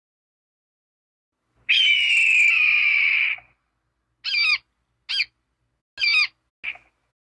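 A bird calling: one long call that falls slowly in pitch, then four short warbling calls about a second apart.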